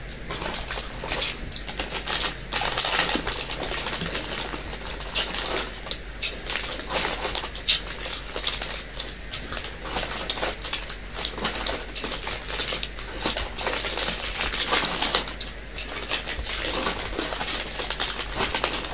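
Crisp potato sticks being chewed close up, a dense run of irregular crackly crunches.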